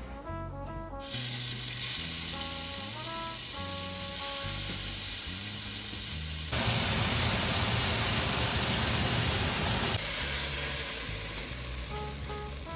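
Marinated chicken thighs sizzling as they fry in hot oil in a pan. The sizzle starts about a second in, grows louder and fuller past the middle, then dies down near the end.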